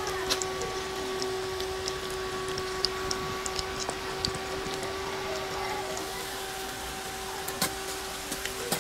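Homemade induction cooker circuit built from a TV deflection coil humming steadily, one mid-pitched tone with overtones, while eggs fry in a cast-iron pan with scattered small crackles and pops.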